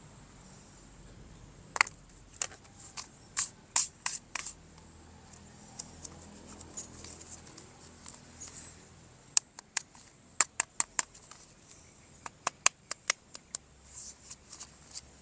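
Irregular sharp clicks and taps of hard plastic toy parts being handled, coming in short clusters of several at a time.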